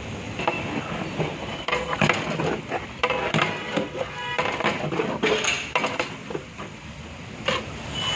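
Metal paddle knocking and scraping against a large metal biryani pot as raw mutton is stirred into the masala, in irregular clanks, with background music.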